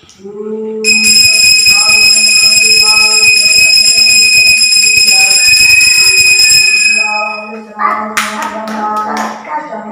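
Temple bell rung continuously, a loud steady ringing that starts about a second in and stops after about six seconds, followed by a few sharp metallic strikes. Devotional singing over a steady drone plays under it.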